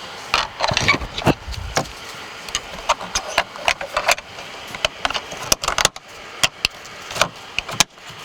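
Plastic interior trim cover being handled and pressed into place by hand: an irregular run of sharp clicks and knocks, with brief rustling near the start.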